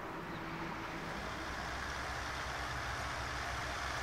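Kominato Railway diesel railcar approaching, its diesel engine a low, pulsing rumble that grows gradually louder.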